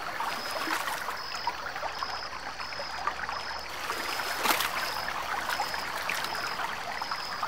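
Stream water trickling and babbling, full of small splashes and drips, with a faint high tone pulsing evenly over it. A sharper click or splash stands out about halfway through.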